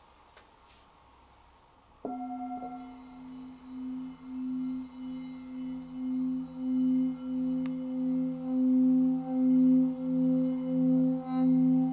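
Two Tibetan singing bowls resting on a person's back, struck with felt mallets about two seconds in for a sound massage. They ring in two low steady tones that pulse in slow waves and grow louder.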